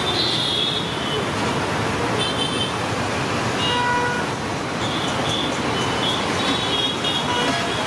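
Road traffic running steadily, with repeated short vehicle horn toots every second or so.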